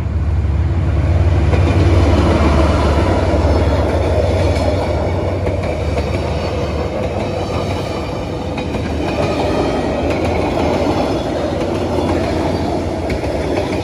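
Vietnamese passenger train passing close by on diesel haulage: a deep locomotive rumble, loudest about two seconds in, then the coaches rushing past with steady wheel noise and rattle on the rails.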